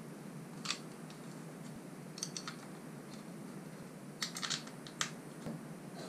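Sharp, light clicks and taps of a hard plastic e-bike battery mount base being handled and fitted against the bike's down tube, in small clusters about two and four seconds in.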